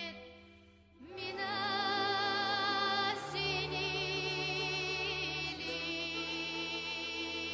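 Background music: a slow melody with strong vibrato over sustained chords. It drops away just after the start and comes back in about a second in.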